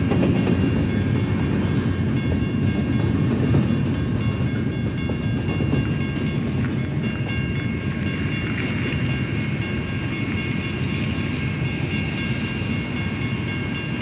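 Freight train's last hopper cars rumbling over the crossing and rolling away, the rumble easing as the train leaves. Over it, the crossing's warning bell rings steadily with a repeating high metallic tone.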